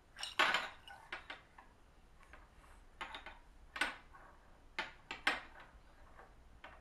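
About ten light, sharp clicks and taps, scattered irregularly, the loudest near the start.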